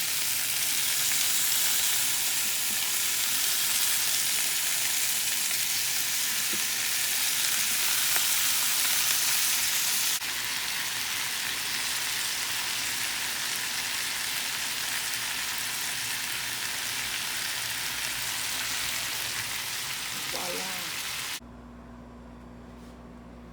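Food sizzling and frying in a hot pan: a steady, dense hiss that drops a little in level about ten seconds in and cuts off abruptly near the end, leaving a low steady hum.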